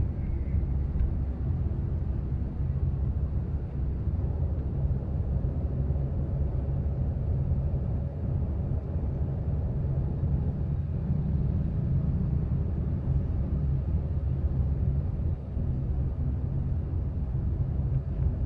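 Steady low rumble of a Suzuki Ertiga's engine and tyres on the road, heard from inside the cabin while driving.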